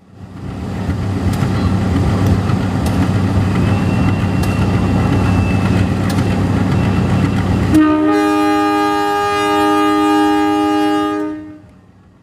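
CC 201 diesel locomotive passing close, its engine giving a steady low rumble with scattered clicks of wheels over rail joints, then one long horn blast starting about eight seconds in and lasting roughly four seconds before everything fades out.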